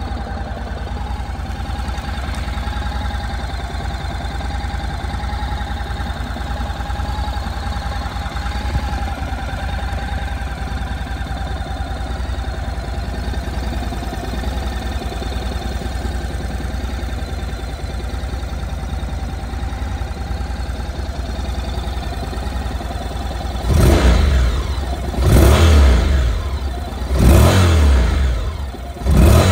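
2015 Honda NC700X's 670 cc parallel-twin engine idling steadily in neutral, then revved four times near the end, each rev rising quickly and falling back to idle.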